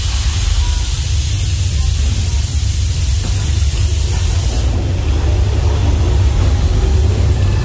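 Loud, steady hiss like spraying air or steam from a studio-tour tram set's special effects, cutting off suddenly about four and a half seconds in, over a continuous deep rumble.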